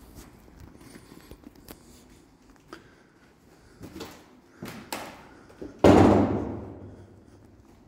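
Scattered footsteps and light knocks on a rubble-strewn concrete floor, then one loud bang about six seconds in that echoes through the empty building and dies away over a second or so.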